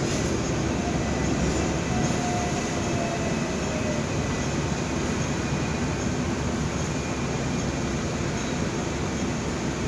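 Steady rumble of a Hong Kong double-decker tram standing still in street traffic, heard from the upper deck. A faint short whine comes about two seconds in.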